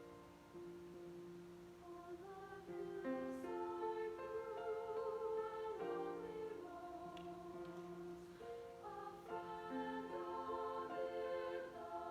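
Chamber choir singing sustained chords in several voice parts, some notes with vibrato, growing fuller after a quieter passage.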